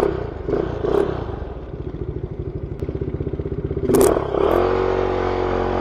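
Motorcycle engine idling with a fast, even putter. About four seconds in there is a clatter, and the engine revs up and settles into a steady run.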